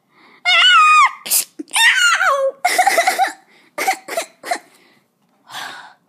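A voice making high-pitched squeals that slide up and down, followed by short breathy, sneeze-like hissing bursts: vocal sound effects for a toy fight.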